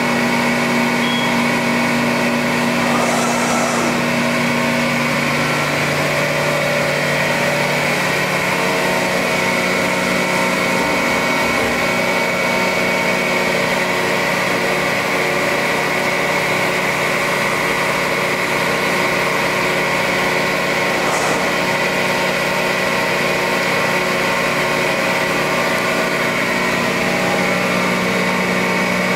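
Hydraulic pump and motor of a 130-ton Accurpress CNC hydraulic press brake running steadily, a constant hum with several steady tones.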